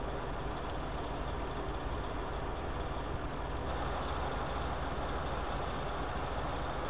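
Wheeled armoured personnel carrier's engine running steadily, a constant low rumble with no change in speed.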